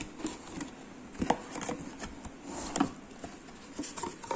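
Cardboard box being opened by hand: the lid flap lifted and pulled back, with scattered taps, scrapes and rustles of cardboard and packing, two sharper knocks about a second in and near the middle.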